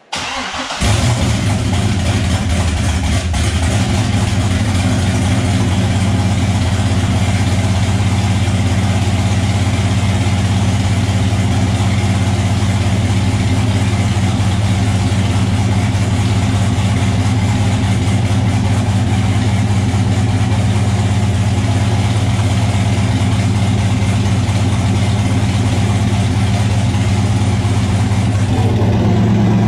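C6 Corvette's LS V8 cranking briefly and catching about a second in, then idling steadily on its first start with a newly fitted turbo. The exhaust dumps straight out of the turbo with no downpipe fitted yet.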